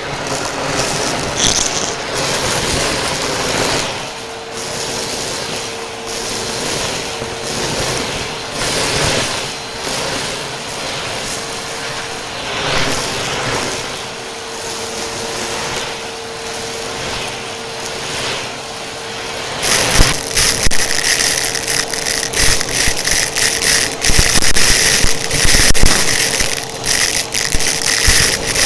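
Vacuum cleaner running with a dusting brush attachment, a steady rushing suction noise with a faint steady hum. About two-thirds through it changes abruptly to a louder, higher-pitched vacuum whine with many rapid clicks and rattles.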